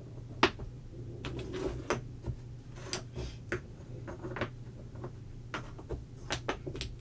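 Wooden puzzle pieces knocking and clacking against each other and the tabletop as they are handled and fitted together: a dozen or so light, irregular knocks over a low steady hum.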